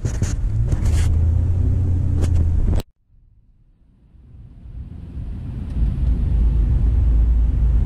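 Steady low road and engine rumble of a car driving in traffic, heard from inside the cabin. It cuts out suddenly a little under three seconds in, then fades back up over the next few seconds.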